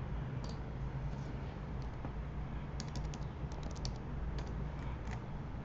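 Keystrokes on a computer keyboard: a few scattered clicks, then a quick run of key taps about three seconds in as a password is typed, over a low steady hum.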